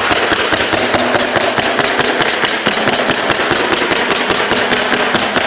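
Staple gun firing in quick succession, about six shots a second, driving 3/4-inch staples through plywood underlayment into the subfloor, over a steady running noise.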